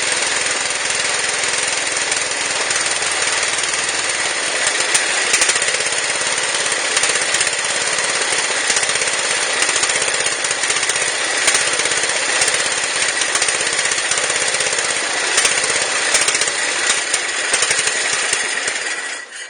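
Riding lawn mower engine running steadily, then cutting off suddenly near the end.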